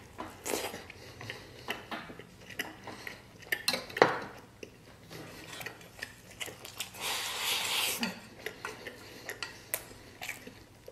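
Utensils clicking and scraping against a stainless steel bowl as food is shoveled into the mouth with wooden chopsticks, along with the mouth sounds of eating. There are many short sharp clicks, the loudest about four seconds in, and a hissy stretch of shoveling and slurping near the two-thirds mark.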